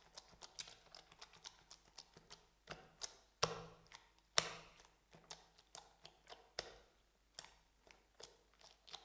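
Slime being worked by hand, giving irregular small clicks and pops, with two louder wet pops about three and a half and four and a half seconds in.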